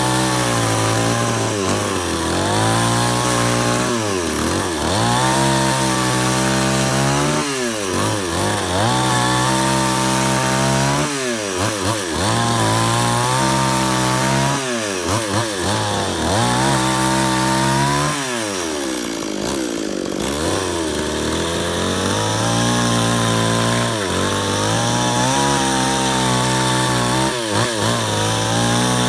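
Chainsaw running at high revs under load, ripping lengthwise along a log as it mills it. The engine pitch sags and recovers every three to four seconds, and eases off briefly about two-thirds of the way through before picking back up.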